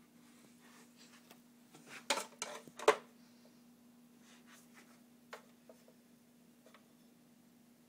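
Handling noise: a brief cluster of rustles and knocks about two seconds in, the sharpest knock near three seconds, then a few light taps, over a steady low hum.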